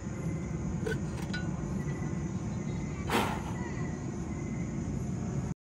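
Night insects, crickets among them, chirping and trilling over a steady low rushing noise, with a few light clicks and one sharper rustle about three seconds in. The sound cuts off abruptly near the end.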